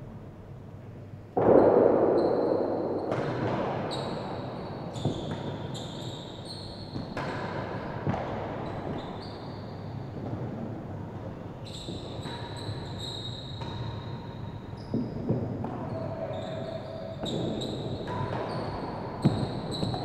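Real tennis ball struck by racquets and knocking off the walls and floor of an enclosed court, echoing, with short high squeaks between the hits. A sudden loud burst about a second and a half in fades away over several seconds.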